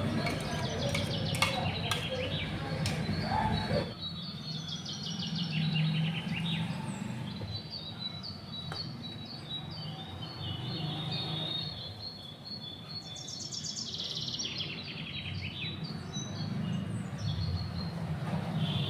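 Birds chirping in repeated trills in the background. During the first few seconds a steel spoon scrapes and taps against a steel mixer jar.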